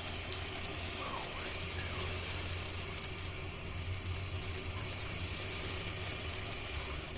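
Consumer firework fountain burning with a steady hiss of sparks over a low, even rumble.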